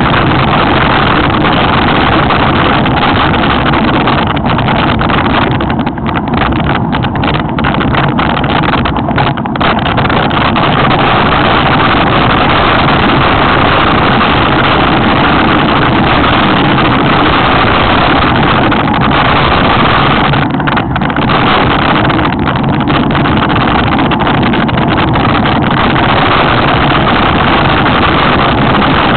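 Loud, steady rush of wind on the microphone and rolling noise from a mountain bike descending fast, with a few brief dips between about five and ten seconds in and again around twenty-one seconds.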